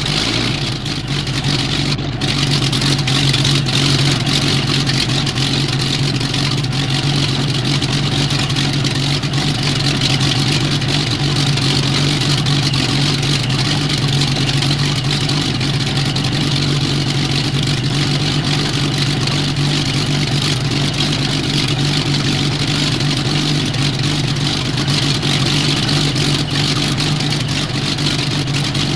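Blackburn Skua's Bristol Perseus nine-cylinder radial engine ticking over steadily just after start-up, a constant low engine hum on a hissy wartime recording.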